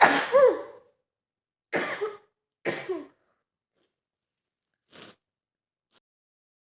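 A woman with a cold sneezes once, strongly, at the start, then coughs twice from a throat irritated by the sneezing. A short sniff follows about five seconds in.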